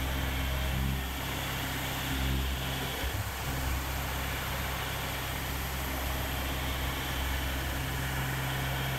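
Tormach 770 CNC mill running, its spindle turning a quarter-inch chamfer mill along the top edges of a metal block: a steady machine hum and hiss, the low hum shifting in level about one and three seconds in.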